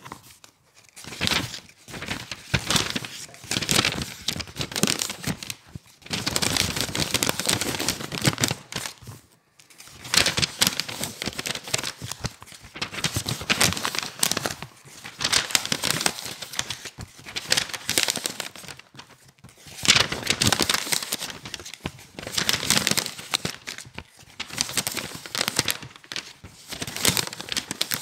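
Pages of a thick book being flipped and turned fast and hard by hand: dense runs of paper rustling and flapping, broken by short pauses, about a third of the way in and again about two thirds of the way in.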